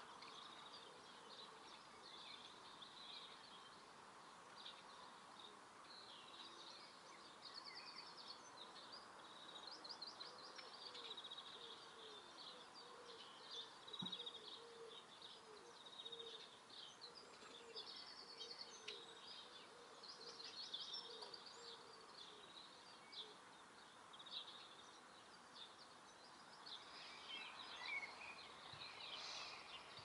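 Faint garden birdsong: several small birds chirping and twittering, with quick rattling runs of high notes now and then, over a low steady background noise.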